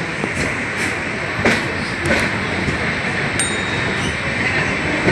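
Passenger train running along a station platform, heard from an open coach doorway: a steady rumble and rush of air, broken by irregular sharp knocks from the wheels and running gear, with a brief thin high squeak a little past the middle.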